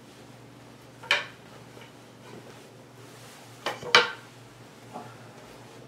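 A few sharp knocks and clacks of bed frame parts being handled and pulled from a cardboard box: one about a second in, then two close together near four seconds, the second the loudest.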